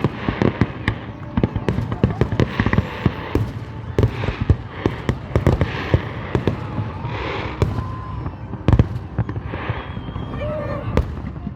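Fireworks display: a dense run of sharp bangs and crackling bursts in quick succession over a low rumble, with people's voices in between.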